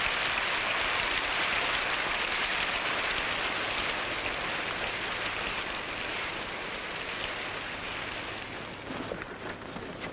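Steady rain falling, an even hiss that slowly grows quieter over the last few seconds, with a few faint knocks near the end.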